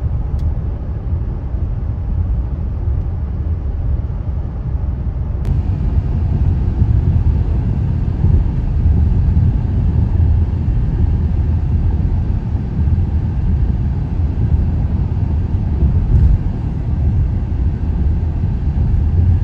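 Road noise inside a moving car at highway speed: a steady low rumble of tyres and engine, growing a little louder and hissier about five seconds in.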